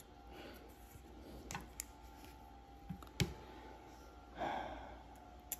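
Faint, scattered clicks of steel and brass tweezers touching the parts of a Seiko 6139 automatic chronograph movement as its top bridge is positioned, with a brief soft hiss about four and a half seconds in.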